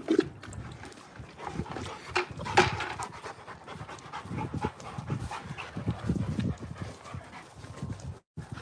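Rottweiler panting in quick irregular breaths, with scattered light knocks and scuffs.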